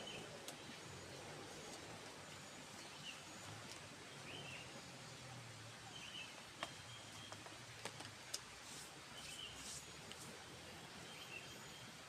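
Faint short chirping calls from an unseen animal, repeating every second or two, with a few sharp clicks between them. This is the strange sound heard while picking coffee.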